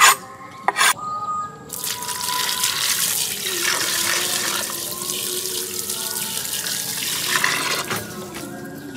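Water poured in a steady stream into a broken clay pot holding two plucked watercocks, splashing as the pot fills, starting about two seconds in and easing off near the end. Two sharp knocks come in the first second.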